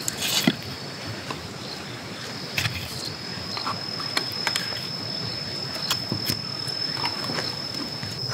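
Thin split kindling sticks and feather sticks being set down and shifted against a split log, giving light wooden clicks and knocks every second or so. A steady high-pitched whine continues underneath.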